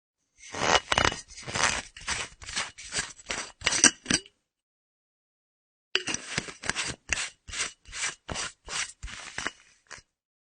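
Screw cap of an empty metal flask being twisted on its threads: two runs of short, quick rasping strokes with a pause between them, and a short click near the end.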